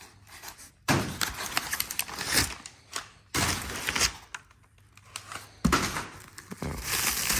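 A cardboard box and its packing material being rummaged through during unpacking: rustling and crinkling, with three sharper knocks of things being moved about, roughly every two and a half seconds.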